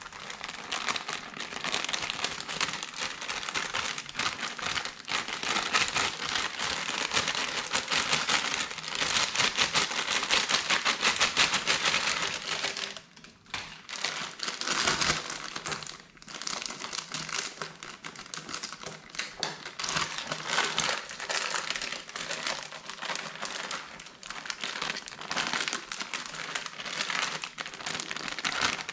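Plastic packets of batter flour crinkling and rustling steadily as they are handled and emptied, with short lulls about 13 and 16 seconds in.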